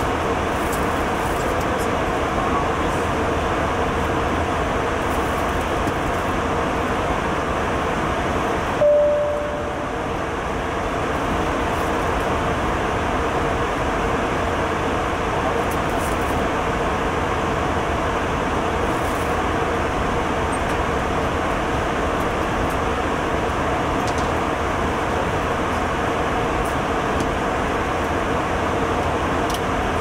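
Steady airliner cabin noise at cruising altitude: an even rushing hum, with one short tone about nine seconds in.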